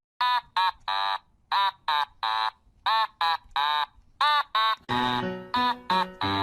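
Cheerful background music: a bright lead of short notes that bend up and down, a few a second, with a lower bass line coming in about five seconds in.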